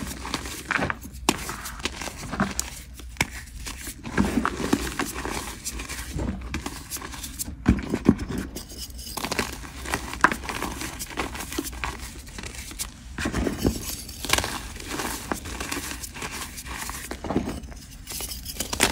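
Hands squeezing and crushing chunks of gym chalk in a bowl of loose chalk powder: irregular dry crunches and crackles with a soft powdery rustle between them.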